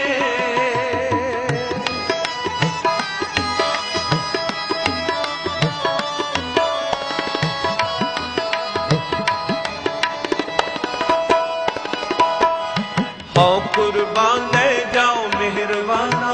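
Harmonium and tabla playing an instrumental interlude between sung lines of a Sikh kirtan shabad: a steady harmonium melody over quick tabla strokes. A held sung note fades out at the start, and singing comes back in near the end.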